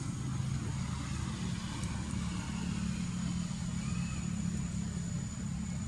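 A steady low engine hum, like a motor idling, with a faint steady high tone above it and one faint short chirp about four seconds in.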